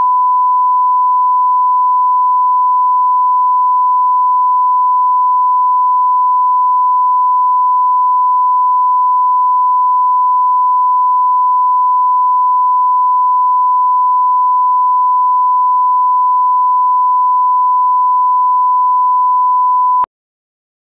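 Continuous 1 kHz reference tone of a bars-and-tone video leader, the line-up signal for setting audio levels: one unwavering pure pitch that cuts off suddenly near the end.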